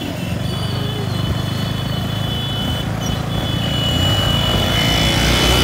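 Several motorcycle engines running at low speed over rough ground, a steady low drone that grows louder near the end.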